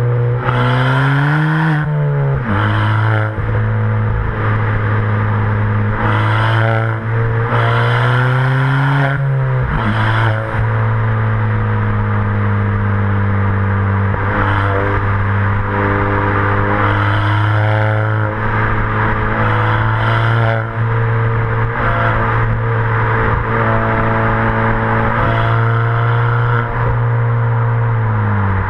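Ford Fiesta ST180's turbocharged 1.6-litre four-cylinder heard at the tailpipes through a decat and Milltek non-resonated stainless exhaust while driving. The engine note climbs, drops sharply about two seconds in, climbs slowly again until it drops once more about ten seconds in, then holds a fairly steady note with small rises and falls, dropping and rising again at the very end. Brief bursts of rushing noise come and go over it.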